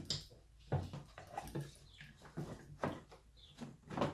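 Plastic fuel tank of an ATV being handled and shifted on its frame: scattered light knocks and rubbing, with a couple of short high squeaks.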